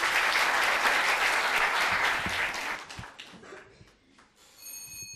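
A small audience applauding, the clapping dying away after about three seconds. A short high tone sounds near the end.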